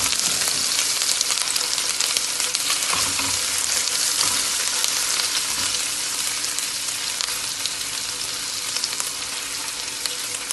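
Finely minced onion, garlic and fresh ginger sizzling steadily in butter and olive oil in a pan, with a constant crackle as they fry.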